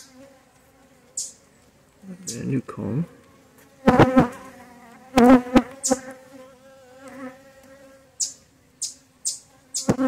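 Honeybees on an open brood frame buzzing in a steady low hum. Twice, about four and five seconds in, a loud wavering buzz rises over it as bees fly right up to the microphone. Short scratchy hisses come repeatedly near the end.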